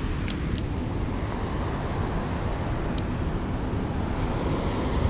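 Steady low rumbling noise of wind buffeting the microphone, with three short clicks: two near the start and one about three seconds in.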